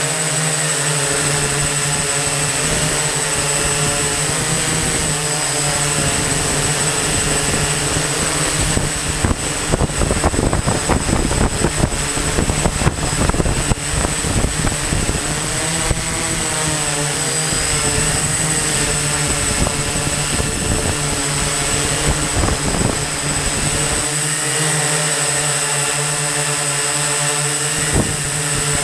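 Electric motors and propellers of an eight-rotor multirotor drone (octocopter) in flight, heard from a camera mounted on the drone itself: a steady, loud whine whose pitch wavers as the motors change speed. It turns rough and choppy for a few seconds in the middle.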